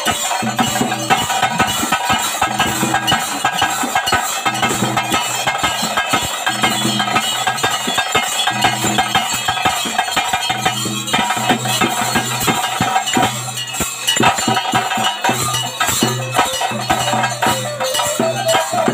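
Live ritual music led by drums played in a fast, steady rhythm, with metallic jingling and a held high tone over the beat.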